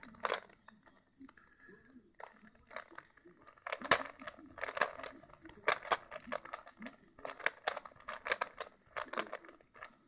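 Plastic Rubik's cube being twisted quickly by hand: the layers click and clack as they turn, in quick clusters about once a second. The loudest clack comes a little under four seconds in.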